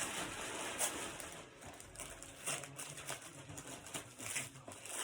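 Christmas wrapping paper rustling and crinkling in irregular handfuls, as it is crumpled and stuffed away and the next present is unwrapped.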